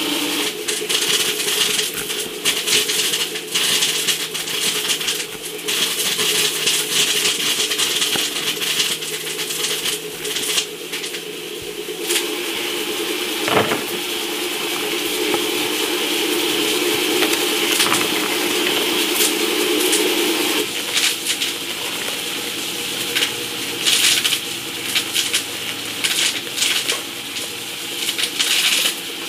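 A kitchen knife cutting kernels off fresh corn cobs and chopping them, with crisp crunching cuts, taps of the blade and loose kernels dropping, and one sharper knock about halfway. A steady low hum runs under it and stops about two-thirds of the way through.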